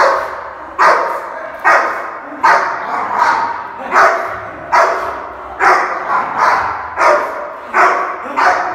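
Rottweiler barking steadily and loudly, about one bark every 0.8 seconds, each sharp at the start and then fading; aggressive barking over its food, a sign of food aggression.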